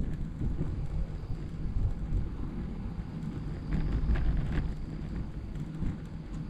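Wind buffeting a GoPro Hero 10 Black's microphone on a moving road bike: a low, gusting rumble that swells briefly about four seconds in.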